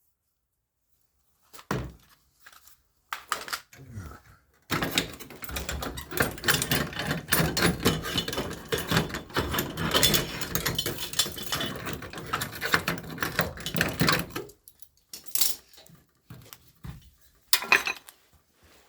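MIG welder crackling as a weld is laid along a car's steel sill. The run starts about five seconds in and stops about ten seconds later, with a few separate clicks and metal knocks before and after it.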